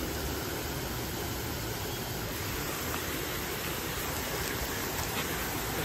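Steady rushing of water pouring over a dam spillway.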